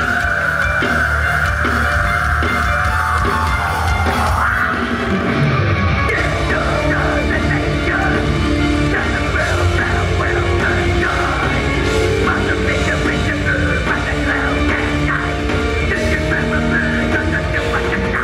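Heavy metal band playing live on a festival PA: a high note is held for the first few seconds, then the full band comes in at a fast, driving tempo about six seconds in.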